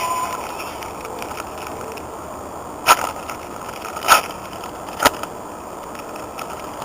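Three sharp, short clacks, about a second apart, over a steady background hiss.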